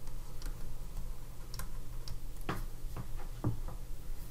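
Irregular light clicks and taps of a stylus on a tablet as handwriting is written, several in quick succession between about two and a half and four seconds in, over a low steady hum.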